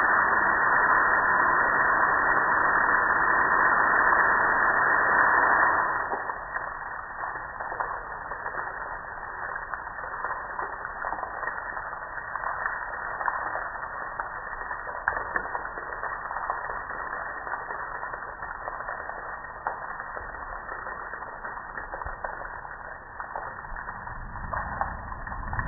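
Water spraying onto a gas grill, a loud steady hiss that drops away about six seconds in to quieter splashing and running water with occasional small taps.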